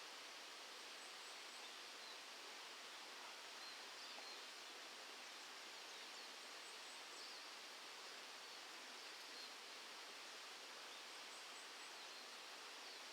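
Near silence: faint, steady outdoor background hiss, with faint high chirps in little groups of three every few seconds.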